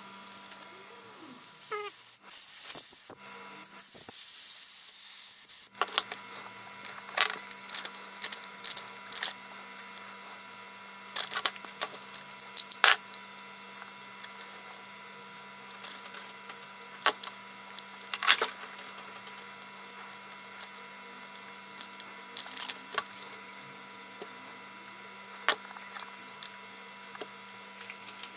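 Light clicks and scrapes of a small metal tool picking and poking at a translucent casting mould, after a louder stretch of rustling and hissing in the first few seconds. A steady low hum runs underneath.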